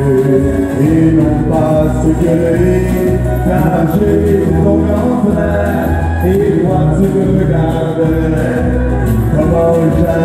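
Live country-and-western band: male vocals over strummed acoustic guitars and drums.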